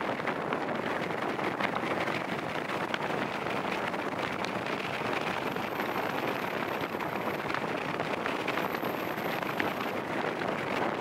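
Steady rushing wind on the microphone mixed with the road noise of a moving vehicle. A faint high-pitched whine comes in twice in the second half.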